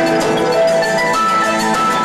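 Live rock band playing an instrumental passage: held keyboard and electric guitar notes over drums and cymbals.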